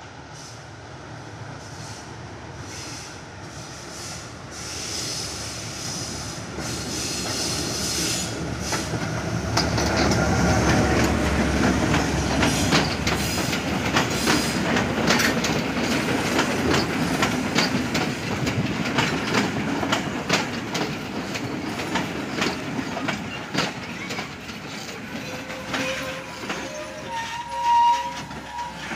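Sri Lankan passenger train running into a station, growing louder as it nears and then passing close by, with its wheels clicking over the rail joints. Near the end it gives a steady squeal as it slows.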